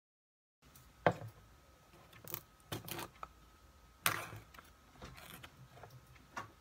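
Foil lid being peeled off a plastic yogurt cup: short crinkling rustles and a few sharp clicks and taps as the cup is handled, starting after a brief silence, the loudest about four seconds in.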